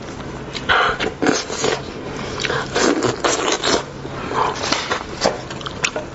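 Close-miked eating sounds: chewing lamb's head meat and pulling it apart from the bone with gloved hands, as a run of irregular wet smacks, crackles and scrapes.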